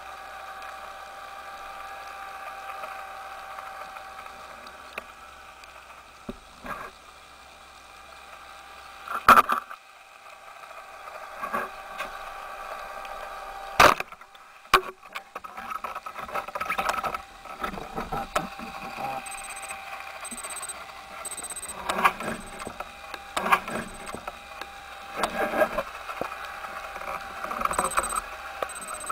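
Underwater sound with a steady motor hum, as from a boat's engine heard through the water. Two sharp, loud cracks come about nine and fourteen seconds in, then irregular knocking and rattling as the speargun and its shooting line are handled.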